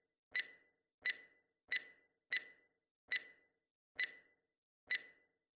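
Film-leader countdown sound effect: short, sharp tick-like blips, one for each number counted down, seven of them at a little under a second apart.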